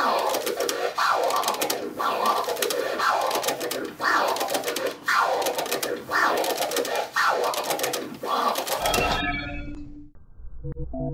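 A vinyl record scratched by hand on a turntable in four-click orbit scratches: the crossfader clicks chop each push and pull into several short cuts, about one back-and-forth stroke a second. About nine seconds in the scratching stops and soft synthesizer music begins.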